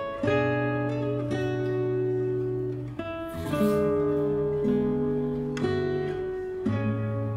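Background music: acoustic guitar chords, changing about every second or so.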